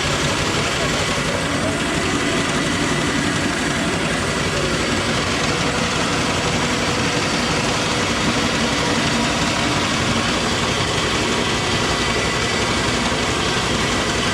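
Old bulgur-milling machine running steadily and loudly as it grinds cracked wheat, a continuous mechanical din with no change in speed.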